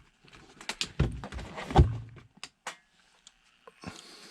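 Handling noise: a run of clicks and knocks as things are moved and set down, with the heaviest thump just under two seconds in.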